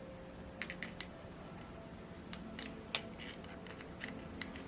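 Light metallic clicks and taps, about eight scattered sharp ticks, as a small poppet valve held on a magnet is fitted into the cylinder head of a Saito FA-82 four-stroke model engine.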